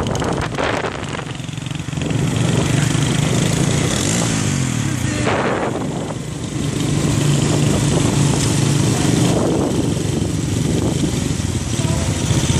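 Motorcycle engine running while riding along, its note easing off about a second in and again around six seconds, then picking back up, with a rush of road and wind noise.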